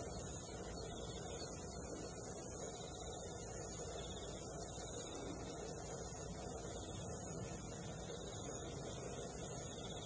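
Steady outdoor field ambience: a low rumble and a high hiss, with a short, pulsed chirp, likely an insect, repeating every second or two.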